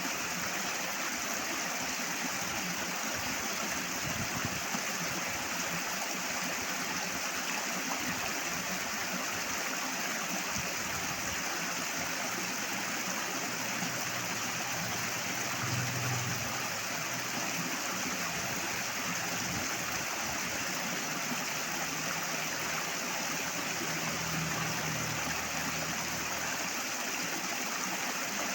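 Flowing water rushing steadily and loudly, one unbroken even noise.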